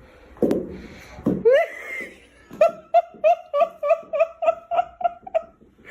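Person laughing in a rapid, even run of about a dozen 'ha' pulses, about four a second, from a little before halfway through to near the end. Before it come two short knocks and a short rising vocal sound.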